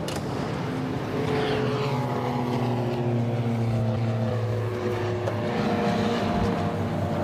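A light propeller airplane's engine droning steadily, louder from about a second in, with a whine that slides down in pitch over the following two seconds.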